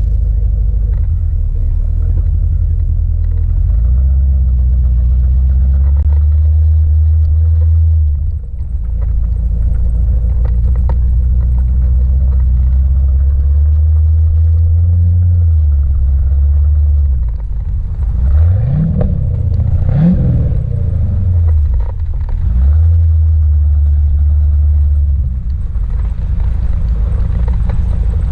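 C4 Corvette V8 engine idling, held at a steady higher speed for a few seconds at a time, and revved sharply twice about two-thirds of the way through.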